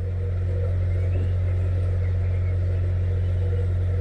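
Narrowboat engine running steadily at slow cruising speed, a constant low hum, with faint birdsong chirping above it.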